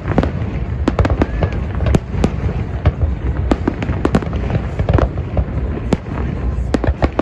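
A rapid, irregular run of sharp cracks and pops, several a second, over a steady rumbling hiss.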